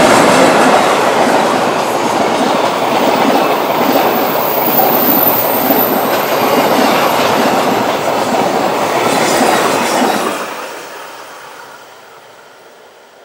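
Container wagons of a freight train rolling past close by, a loud steady rattle of wheels on rails. About ten seconds in the last wagon passes and the sound falls away quickly to a faint receding rumble.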